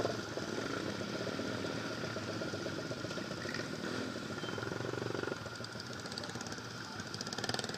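Several small underbone motorcycle engines idling together, a steady, fast-pulsing run. About five seconds in the lower part of the engine sound drops off, and a higher engine note comes up near the end.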